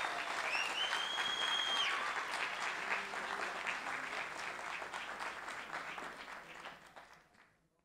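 Audience applauding at the end of a talk, with one high held call from the crowd about half a second in. The clapping fades steadily and dies out just before the end.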